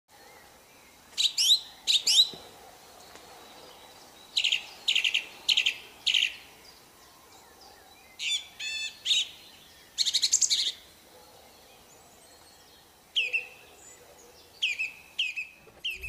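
Song thrush singing: short, loud phrases of clear whistled and rattling notes, each note or figure repeated two to four times in quick succession, with pauses of a second or two between phrases.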